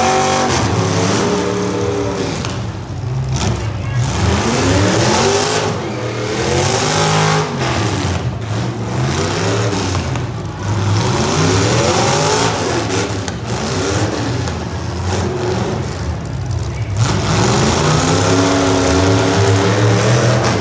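Modified demolition derby car engines revving up and down over and over, the pitch climbing and falling in repeated surges as the cars accelerate and back off.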